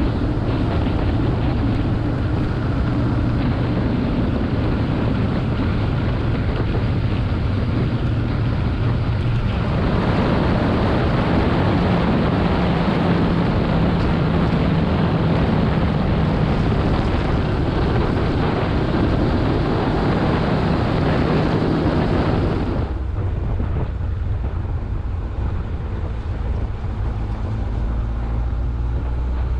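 Motorcycle engine running on the road, under heavy wind noise on the microphone. The sound changes abruptly twice, about ten seconds in and again about twenty-three seconds in.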